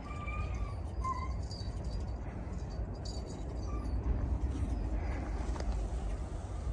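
Short high animal squeaks, twice in the first second or so and once more faintly midway, over a steady low rumble.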